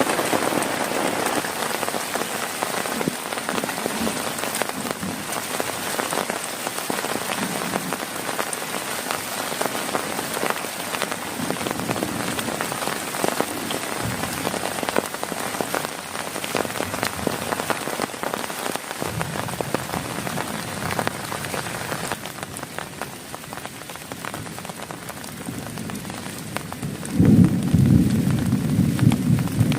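Heavy rain falling on a tent, a dense hiss full of separate drop hits, easing slightly about two-thirds of the way through. Near the end a loud low rumble comes in over the rain.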